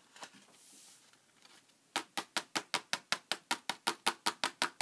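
Paper sheet rustling as it is curled into a funnel, then rapid, even taps on the paper, about six a second, starting about two seconds in, as leftover embossing glaze powder is knocked down the funnel toward its jar.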